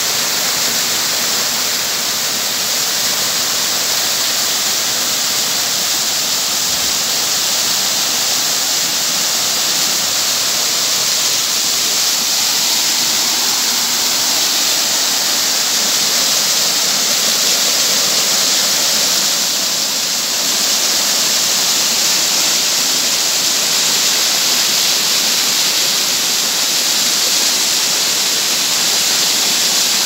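A small waterfall cascading over rocks into a shallow stream: a loud, steady rush of falling water that stays even throughout.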